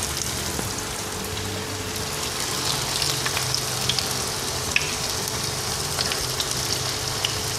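Spring rolls in wonton wrappers frying in hot oil in a pan: a steady sizzle with scattered small pops and crackles.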